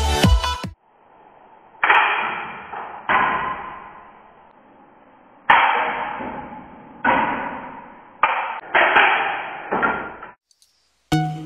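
A LEGO Technic rubber-band gun firing at LEGO brick targets: a series of about seven sharp plastic snaps and clacks with short rattling tails, as bands are released and bricks are hit and knocked over.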